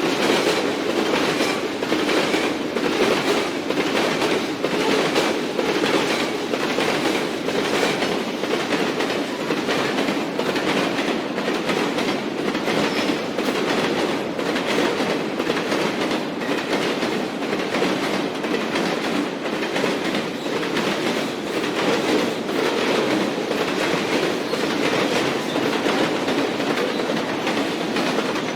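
Elevated train passing on its track, its wheels making a steady, rapid clickety-clack over the rail joints, with a continuous rumble of the cars.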